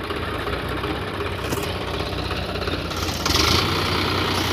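Eicher 551 tractor's diesel engine running with a steady low beat as the tractor works to drive out of deep mud, its rear wheel stuck. It gets louder and harsher about three seconds in.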